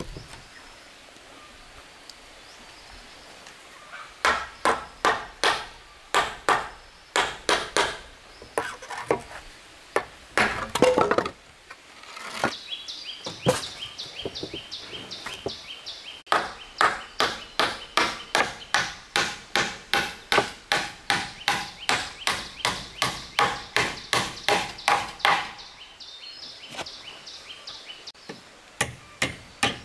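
Claw hammer striking the wooden formwork boards, nailing them together, in long runs of sharp blows about three a second with short pauses between runs.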